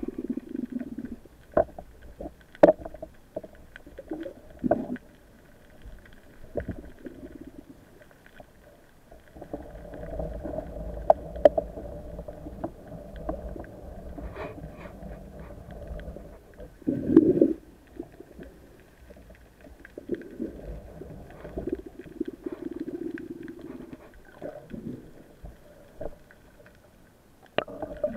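Muffled underwater sound through a camera's waterproof housing as a freediver moves with a speargun: scattered clicks and knocks of gear, a steadier rush of water for several seconds in the middle, and a few low muffled surges.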